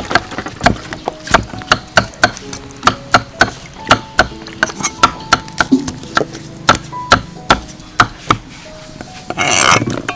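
Large kitchen knife chopping ripe papaya on a wooden tree-trunk chopping block: sharp, irregular knocks of the blade hitting the wood, about three a second. Near the end, a short rush of noise as the cut pieces tumble into a metal bowl.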